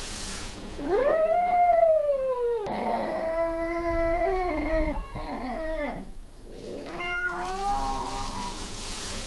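Domestic cat caterwauling: long, drawn-out wavering wails, the first rising then sliding down, with a short break about six seconds in before another wail. It is the loud yowling call of a cat in mating season.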